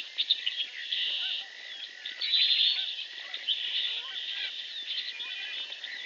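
Dense chorus of wild animal calls: repeated high trills and buzzes that swell and fade every second or so, a thin steady whine beneath them, and many short chirps scattered over the top.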